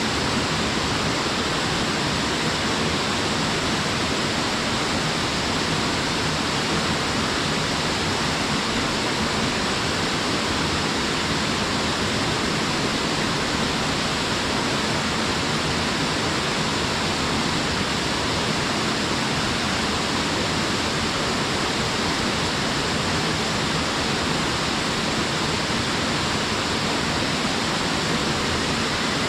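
Small waterfall splashing down, a steady even rush of falling water.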